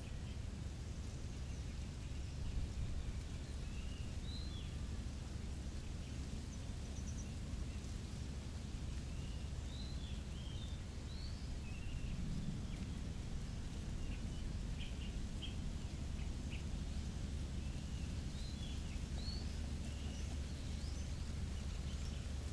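Small birds calling in short, scattered chirps, some rising and some falling, over a steady low outdoor rumble.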